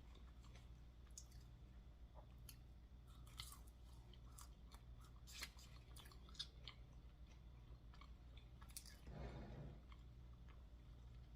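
Faint chewing: a person eating fast food, with scattered soft wet mouth clicks and a brief soft rustle about nine seconds in.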